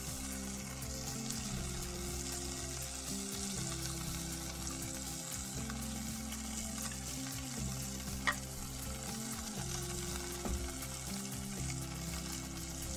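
Smash burgers sizzling and crackling on a griddle under a covering sheet pan over a charcoal kettle grill, with one sharp click about eight seconds in.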